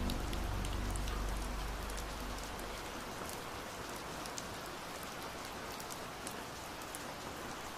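Steady rain falling, an even hiss dotted with scattered drop ticks. The low tail of the previous slowed song fades out in the first few seconds.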